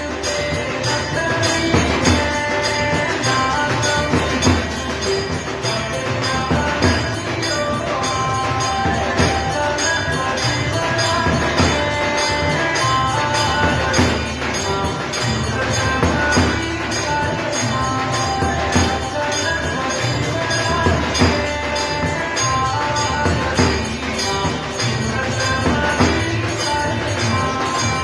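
Hindu devotional aarti music: a melody of short held notes over fast, continuous jingling percussion and a steady beat.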